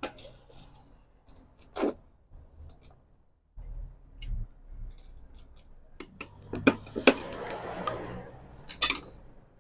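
Metal parts being handled on a table saw: scattered sharp clicks and clinks, a low knock about four seconds in, then a scraping slide of metal on metal from about six to nine seconds in.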